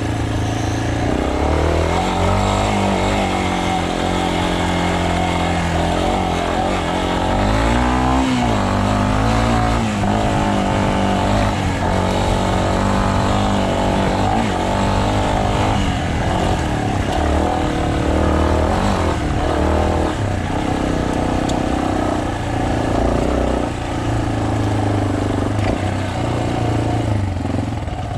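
Single-cylinder trail motorcycle engine running on the move, its pitch rising and falling again and again as the throttle opens and closes, over a steady rushing noise.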